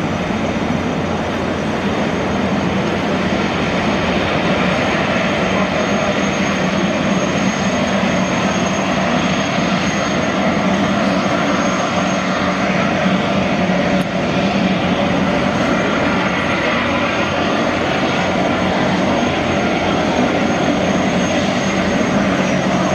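Boeing Jetfoil 929-100's gas turbines running as the jetfoil moves slowly hull-borne through the water: a steady, loud jet-engine rush with a thin high whine held over it.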